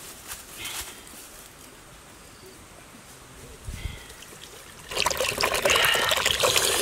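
A few faint knocks and a low thud, then, about five seconds in, coconut water poured from a freshly opened green coconut splashes and trickles loudly into a blackened metal cooking pot.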